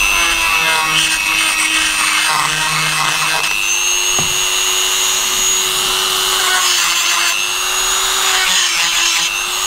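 Small handheld corded rotary tool running at high speed, a steady high-pitched whine, its bit working against a steel engine front plate. The pitch sags slightly now and then as the bit bites.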